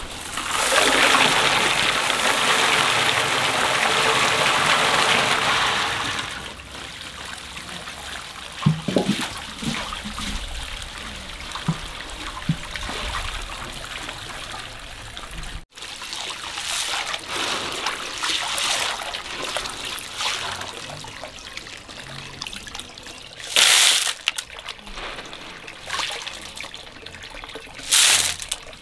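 Water pouring into a basin to soak snails, running steadily for about six seconds, then quieter trickling and sloshing, with two short, loud splashes near the end.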